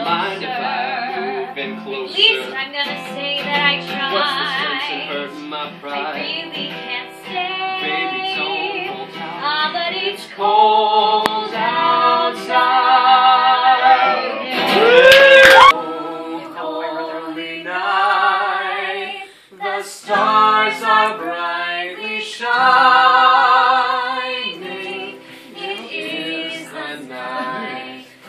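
Live song: a female voice singing with a wavering vibrato over a strummed acoustic guitar, a male voice singing with her at times. The singing peaks loudest about halfway through.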